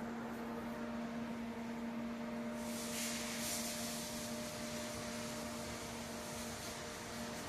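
A MIG welder's steady electrical hum, then about three seconds in a hissing crackle starts and keeps going: the welding arc burning as the test bead is laid.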